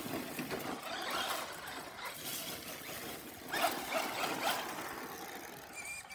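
Traxxas radio-controlled truck driving fast across grass and onto concrete, its motor whining up and down with the throttle over the rush of the tyres.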